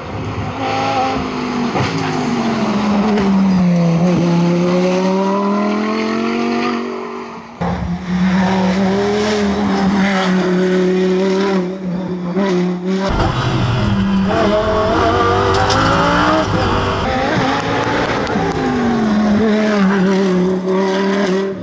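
Hill-climb race car engines at full throttle. The pitch falls and then climbs again as they brake and accelerate through the bends. The sound changes abruptly twice, about a third of the way in and again past halfway, as one car gives way to the next.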